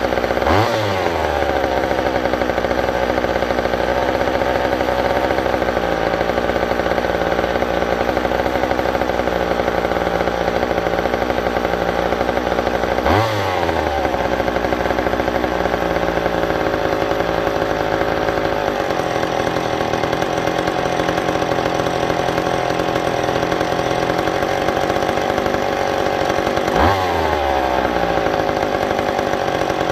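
McCulloch two-stroke chainsaw engine running steadily, blipped to a quick rev three times, while its carburetor is being tuned on a first fire-up.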